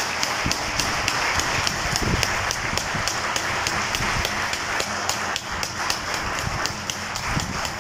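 Crowd applauding in a tribute, with close, sharp hand claps at an even rhythm of about three to four a second over the general applause.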